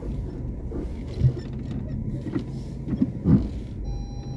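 Renault Duster running under load, heard from inside the cabin as it pushes into deep snow, with two thumps about a second in and near three seconds, the second the louder. A short, thin electronic tone sounds near the end.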